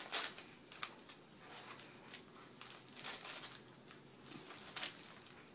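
A dog tearing and crinkling glossy magazine pages with its teeth, in short irregular bursts of ripping paper.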